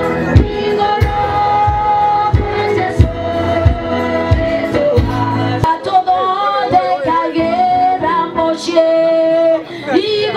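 Choir singing a hymn-like song over a steady drum beat; the drums drop out a little over halfway through and the voices carry on alone.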